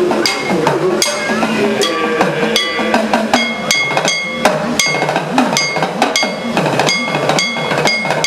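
Sopana sangeetham: a male voice singing to the edakka hourglass drum, whose pitch glides up and down. A small bell-metal chengila gong is struck about twice a second, each stroke ringing on.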